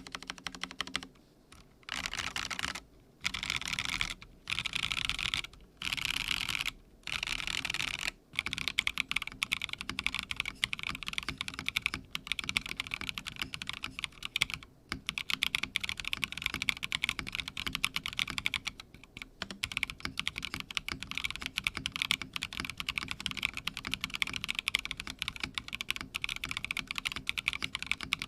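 Typing on a Theca Rubrehose TKL custom mechanical keyboard with an aluminium plate, linear switches and NicePBT PBT keycaps. Several short bursts of rapid keystrokes with pauses between them, then about eight seconds in, continuous fast typing.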